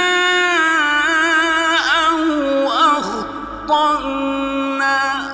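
A man reciting the Quran in the drawn-out melodic mujawwad style, holding long ornamented notes that waver and step up and down in pitch, with no break for breath until the very end.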